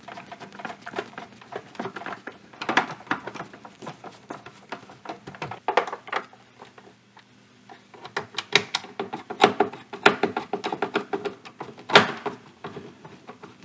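Hand screwdriver driving screws into a Samsung printer's plastic document-feeder hinge mounts, amid irregular clicks and scrapes of the plastic hinges being seated. One click about twelve seconds in is louder than the rest.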